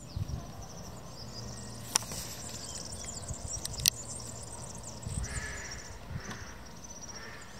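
Quiet canal-side outdoor ambience: a low, uneven rumble with faint bird calls about five to six seconds in, and two sharp clicks about two and four seconds in.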